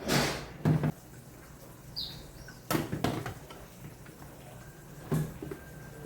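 A few separate knocks and clunks of things being handled and set down around the house, like a cupboard or door and containers, with a short squeak about two seconds in.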